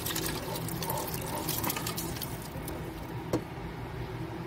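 Cooked mutton pieces and their stock being tipped from a vessel into a pot of curry: wet pouring and splashing with scattered clicks. One sharp knock about three seconds in.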